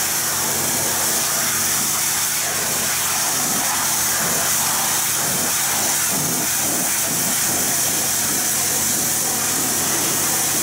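Hot-water pressure washer spraying at high pressure against an excavator's steel panels: a steady, loud hiss of the jet, with the washer's 14 hp Kohler gasoline engine running steadily underneath.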